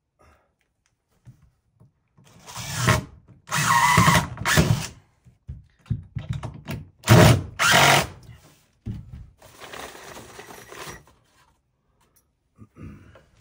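Cordless drill driving screws into wood in four short runs, the last one much quieter.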